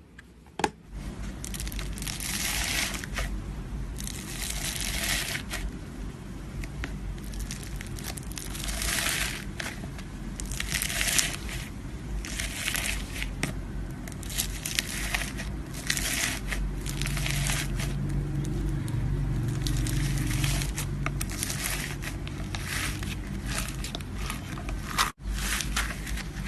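Slime being squeezed and worked by hand, giving a noisy crackle that swells and fades every second or two, over a low steady hum. A brief sharp click comes just after the start.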